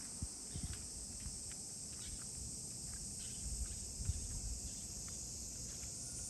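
Steady high-pitched drone of insects, with faint irregular ticks of a crow's beak pecking at food on a metal TV antenna. A few low thumps stand out, the loudest near the start and about four seconds in.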